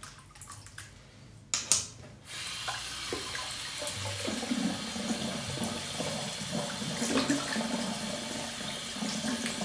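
A couple of sharp knocks, then a tap running water into a sink, starting about two seconds in and running steadily.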